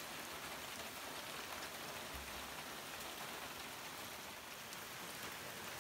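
Rain falling steadily: an even hiss with scattered drop ticks.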